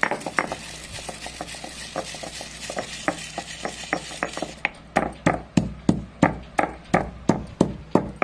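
Stone pestle pounding roasted coriander seeds in a stone mortar, crushing them to a coarse powder. Quick, light strikes at first, then from about halfway steady, heavier strikes about three a second.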